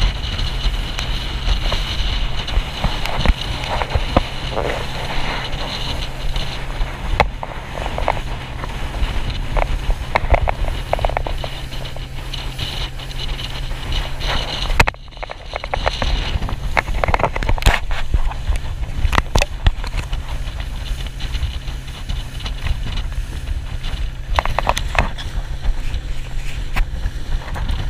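Boat's outboard motor running steadily as the boat travels, with wind buffeting the microphone and scattered knocks and crackles of water and hull.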